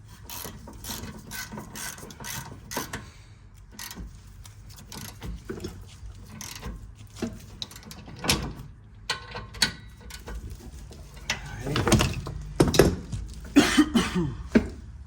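Hand ratchet clicking in quick runs of strokes while working bolts on a car's rear brake caliper assembly, mixed with clanks of tools and parts. The clicking grows busier and louder in the last few seconds.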